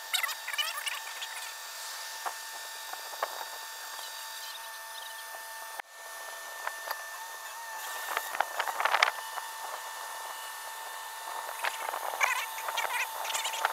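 Steady mechanical whine from a tow truck's winch pulling a submerged pickup truck up out of the pond, with birds chirping over it.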